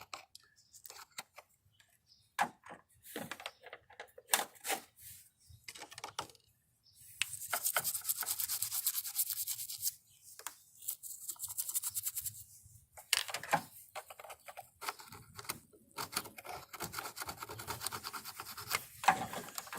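Corrosion being scraped off a car battery terminal. Scattered taps and clicks come first, then rapid scratchy scraping in two long spells.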